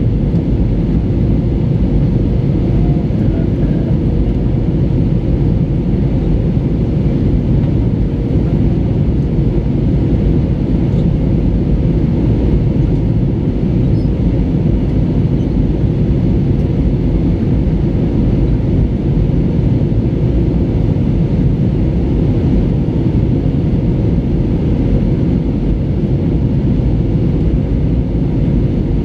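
Steady cabin noise inside an Airbus A320 in descent: a deep, even rush of airflow and engine noise, with a faint steady hum running through it.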